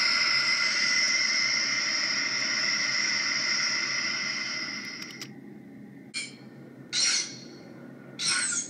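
Mothra larva's screeching cry as a creature sound effect: one long, high cry that starts suddenly and holds steady for about five seconds before fading, then three short cries about a second apart.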